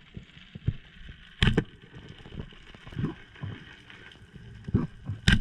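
Muffled underwater sound picked up through a camera's waterproof housing: a low rumble of water noise with scattered soft knocks, and two sharp clicks, one about one and a half seconds in and one near the end.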